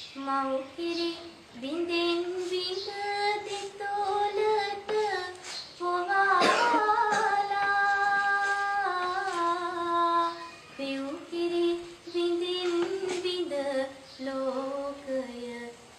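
A schoolgirl singing solo and unaccompanied: one voice with long held notes, slides and ornamented turns between them, with short breaths between phrases.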